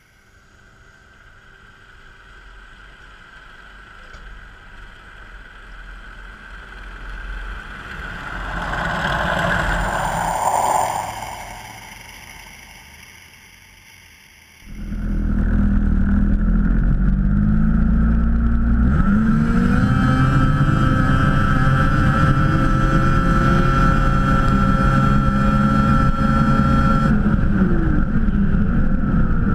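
A tractor pulling a track groomer comes closer and passes, loudest about ten seconds in, then fades away. At about the halfway point it cuts suddenly to a snowmobile engine heard close up on the sled, running steadily at an even pitch.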